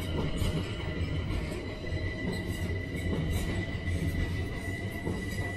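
London Overground Class 378 electric multiple unit pulling out of the platform: a steady low running rumble with a thin, steady high-pitched whine over it.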